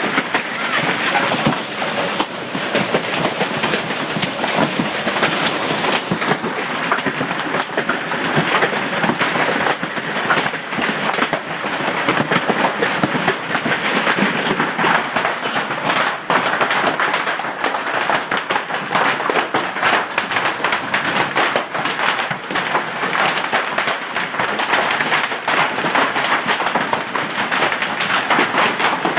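Hail and heavy rain pelting down, a dense, steady clatter of countless impacts over a rushing hiss.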